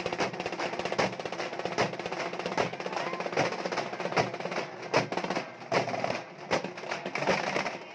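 A group of halgi frame drums beaten with sticks together in a fast, dense rhythm of sharp, crisp strikes.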